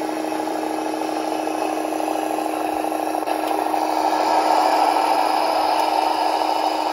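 M.T.H. RailKing Speedee Operating Car Wash's electric drive running: a steady grinding whir over a low hum as its plastic gears pull the model car along its track. It grows louder about four seconds in.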